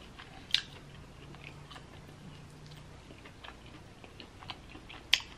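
Close-miked chewing of fried chicken: soft, irregular mouth clicks and smacks, with a sharper click about half a second in and another near the end.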